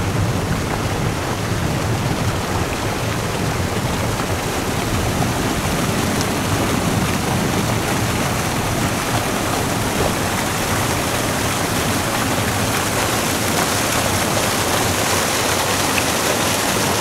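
Fast-running water rushing and churning over rocks: a loud, steady rush with no letup.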